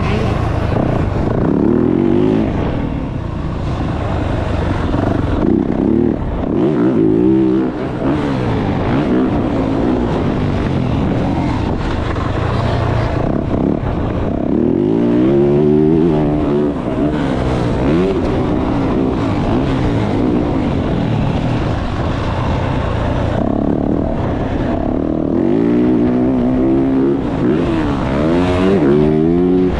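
A 2024 Yamaha YZ450F's 450 cc single-cylinder four-stroke engine at full race pace, heard close up from on board. The revs climb and drop again and again as the throttle opens and closes through the track's turns and jumps.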